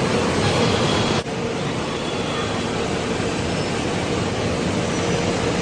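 Steady noise of a moving vehicle, with a brief drop in level about a second in.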